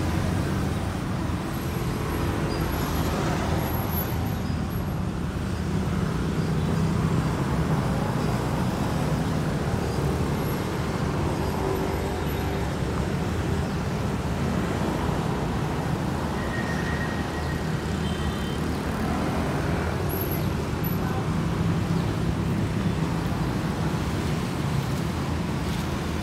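An engine idling steadily, a low even rumble with no change in speed.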